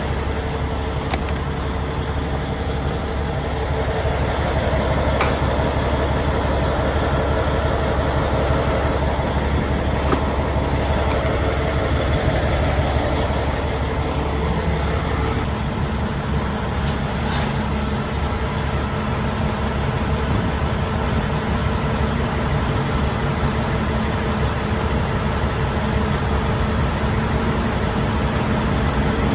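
Semi truck's diesel engine idling steadily at a truck-stop fuel island while diesel is pumped into its tank, a constant low hum. A single short click about 17 seconds in.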